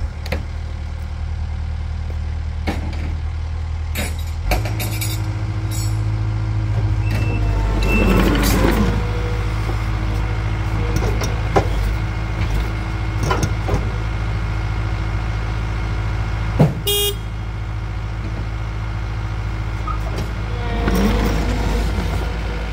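Takeuchi TL10V2 compact track loader's diesel engine starts and runs steadily. It picks up speed about four and a half seconds in, with louder swells twice as the machine's controls are worked, a few sharp clicks and a brief high beeping.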